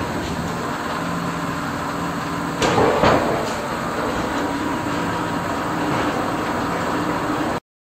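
Patterson-Kelley 20 cu ft twin-shell blender turning on its stands, its electric main drive running with a steady hum. A couple of loud clunks come about two and a half to three seconds in.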